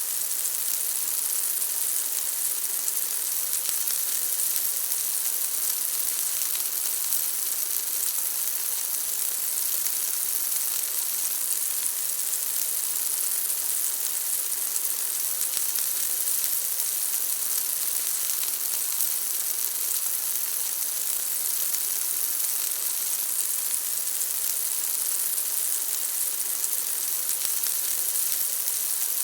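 Bacon frying in a pan: a steady, dense sizzle with fine crackling of hot fat.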